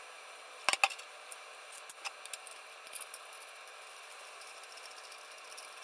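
Clicks and light clatter of small metal hardware, tools and a 3D-printed plastic part being handled on a worktable: two sharp clicks a little under a second in, a few more about two and three seconds in, then a quick run of faint ticks.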